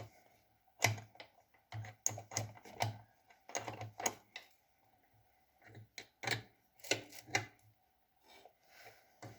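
Irregular clicks and knocks of metal parts being handled and adjusted by hand on a small lathe, in uneven clusters with short pauses between them.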